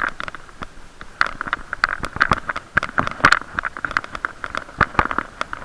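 Irregular rapid clicks and knocks, several a second, picked up through a sealed waterproof camera case worn on the chest of a cyclist riding. Each knock has the same boxy ring, and the case muffles everything else.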